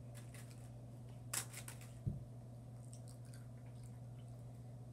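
Small handling noises at a table: a few soft clicks and rustles from fingers in a cardboard jelly bean box, and one dull knock about two seconds in, over a steady low hum.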